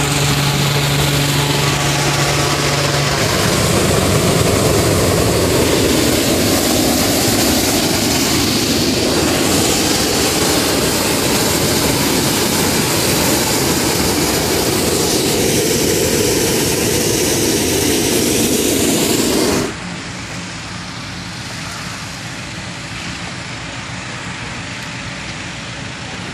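Hot air balloon propane burner firing in one long continuous blast into the envelope during hot inflation, cutting off suddenly about twenty seconds in. A quieter steady engine hum carries on after it.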